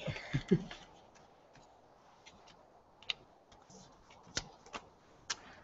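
Faint rustling of folded paper slips being stirred in a container, then a handful of isolated sharp ticks and crinkles as one slip is drawn out and unfolded.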